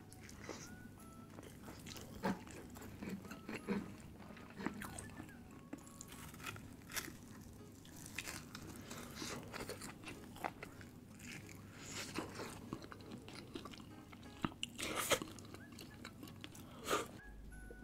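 Close-miked eating: irregular bites, crunches and chewing mouth sounds, with the loudest crunch about fifteen seconds in.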